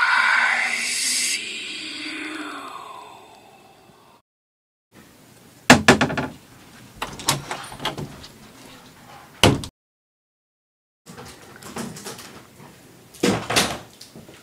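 Kitchen cupboard doors being worked: a long creak as a door is opened, fading over the first few seconds, then a run of sharp knocks and bangs as doors are shut and things are handled, the loudest about halfway through and near the end.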